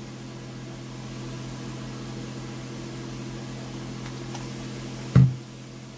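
Vinegar trickling from a bottle into a glass jar of soy-sauce dip, over a steady low hum. About five seconds in there is one sharp knock, the loudest sound.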